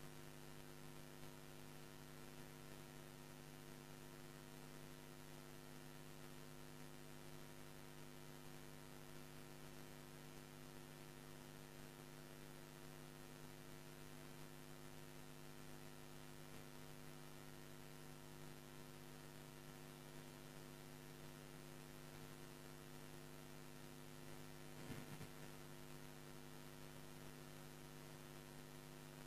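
Near silence with a steady electrical mains hum, likely from the audio gear's amplification. A faint short sound comes about 25 seconds in.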